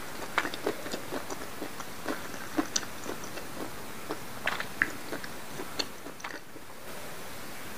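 Close-miked chewing of a mouthful of squid ink spaghetti: a string of short, wet mouth clicks and smacks that thin out about six seconds in, leaving only a steady hiss near the end.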